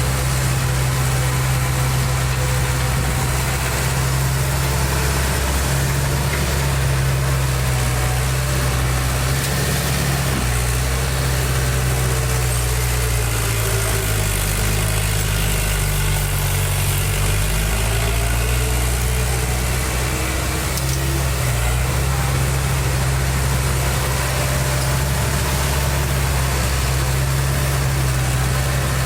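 Heavy construction machine's diesel engine running steadily, its pitch sagging for a few seconds around the middle under load and then picking back up.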